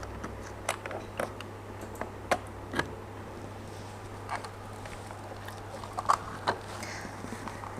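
Scattered light clicks and taps as a USB mouse is plugged in and clicked, over a steady low hum.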